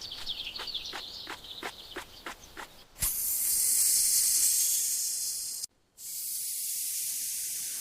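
A run of light, evenly spaced ticks about three a second, then a sudden thump and a loud hiss like a spray. The hiss cuts out briefly and comes back softer and steady.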